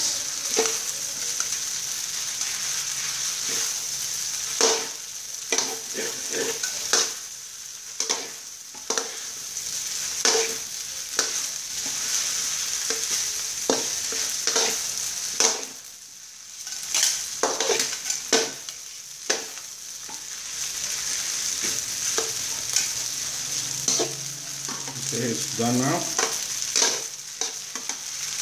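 Glass noodles and vegetables sizzling in a hot metal wok while being stir-fried, with a metal spatula and tongs repeatedly scraping and clinking against the pan. The sizzle dips briefly about halfway through.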